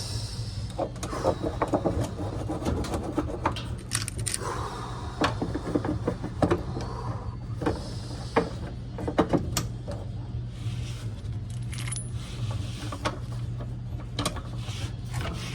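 Metal tools and parts clinking and rattling as they are handled, in irregular scattered clicks over a steady low hum.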